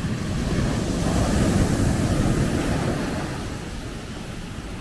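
Sea surf breaking against rocks, a surge that swells about a second in and eases off toward the end.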